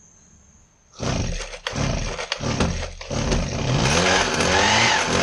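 Husqvarna 122HD60 hedge trimmer's small two-stroke engine being pull-started: about a second in, the engine sputters in uneven bursts as the starter rope is pulled, then catches and runs, revving up and down.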